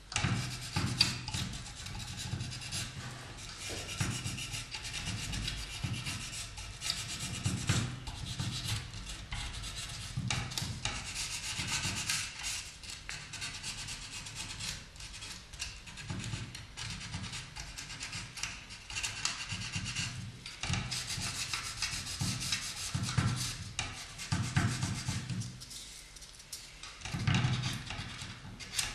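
Hand-rubbing carved wooden fretwork with a small abrasive pad: irregular scratchy strokes, with dull bumps now and then as the piece is handled.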